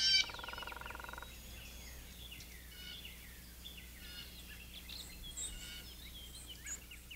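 Birds calling and chirping in woodland ambience, with many short, faint high chirps and whistles. One louder call lasts about a second at the start.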